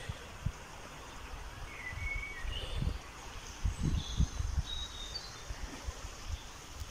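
Low, irregular thumps of footsteps and handling of a phone held while walking outdoors, with a few short, faint bird chirps in the middle.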